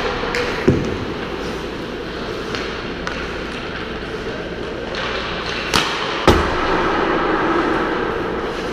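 Ice hockey practice on a rink: a steady wash of skate blades and stick noise on the ice, broken by sharp knocks of pucks and sticks. One knock comes a little under a second in, and two loud ones come about half a second apart near six seconds, the second with a low thud like a puck hitting the boards.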